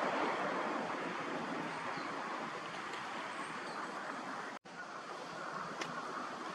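Steady rushing outdoor background noise with a few faint high chirps, broken by a split-second dropout about four and a half seconds in; no clear duck calls.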